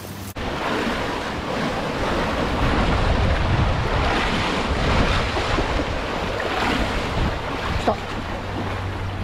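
Sea waves breaking and washing among concrete tetrapod blocks, with wind buffeting the microphone as a low rumble under the rushing surf. The waves are rough, running high ahead of an approaching typhoon.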